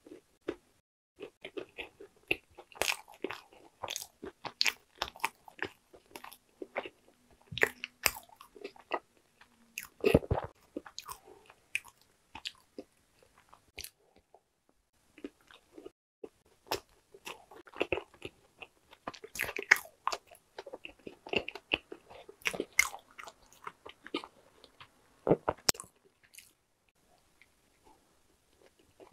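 Close-miked chewing of Korean walnut cakes (hodu-gwaja), crunching through the walnut pieces, with wet mouth clicks. The chewing pauses briefly about halfway through as a fresh whole cake goes into the mouth, then picks up again and fades near the end.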